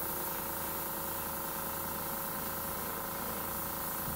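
Small air compressor feeding an airbrush, running with a steady droning hum, under the hiss of air from the airbrush.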